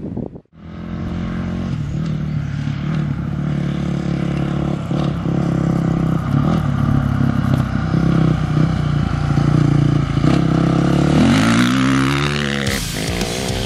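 Dirt bike engine running at steady revs as it approaches, then rising in pitch as it accelerates past close by; the sound cuts off abruptly near the end.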